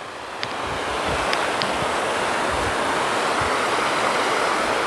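Rushing water from the dam, a steady rushing noise that grows louder over the first second and then holds, with a few faint clicks.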